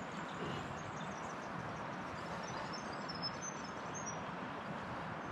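Steady rushing of a flowing river, with a few faint bird chirps in the middle.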